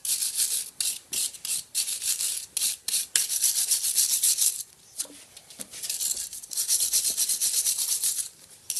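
Hand-held steel wire brush scrubbed quickly back and forth over the metal hub-adapter mounting plate of an on-car brake lathe, a rapid high-pitched scratching with a short break about halfway; the plate is being cleaned of built-up dirt and debris.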